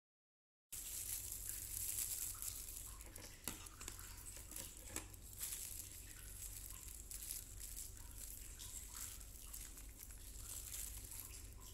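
Faint crinkling and rustling of a packet of chili powder being squeezed and shaken out into a plastic bowl, with small irregular ticks, starting under a second in.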